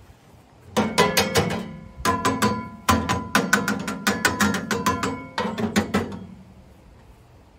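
A small metal shovel scraping and knocking inside the steel firebox of a Kni-Co Alaskan wood-burning camp stove while clearing out ash: runs of quick rasping strokes with a metallic ring. They start about a second in and stop about a second and a half before the end.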